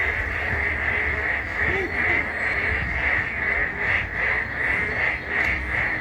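Chorus of frogs calling by a stream: a dense, high, continuous calling that swells into a regular pulse about three times a second in the latter half, over a low rumble.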